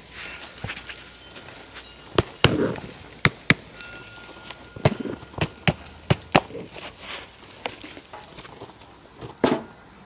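A plastic plant pot held upside down being knocked and tapped to free a pot-bound bird's nest fern's root ball. About a dozen sharp knocks, irregular and often in pairs.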